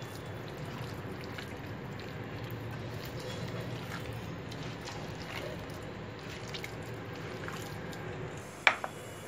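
A hand squeezing and kneading wet minced chicken and egg in a metal bowl, with soft squelching. A single sharp click near the end.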